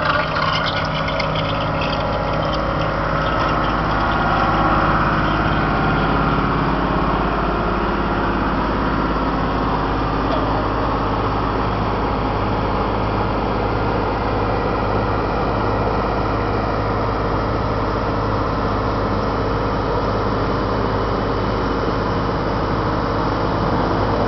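Diesel engine of an asphalt road roller running steadily while it compacts a fresh asphalt layer, with a constant low drone.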